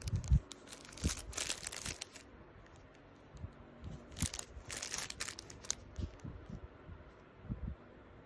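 Thin clear plastic packaging bag crinkling and tearing as it is handled and opened, in two spells of rustling, about half a second in and again about four seconds in, with light handling knocks.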